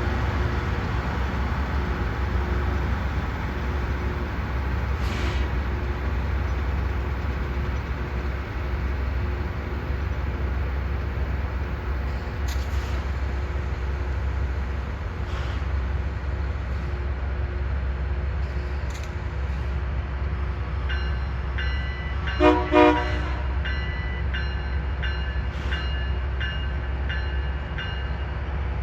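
Rail maintenance machine running with a steady low rumble; about two-thirds of the way through, its horn gives two short toots, with a series of evenly repeated bell-like dings for several seconds around them.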